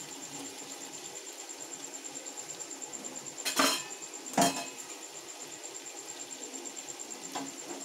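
A metal spoon stirring in a large metal cooking pot, clanking sharply against the pot twice, about three and a half and four and a half seconds in.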